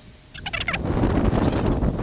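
A brief rattle of clicks about half a second in, then loud, steady wind buffeting the microphone.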